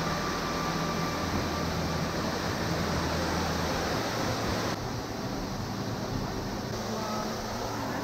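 Steady rushing of a waterfall plunging into its pool, in full flow with spring snowmelt and rain. The noise drops a little in level nearly five seconds in.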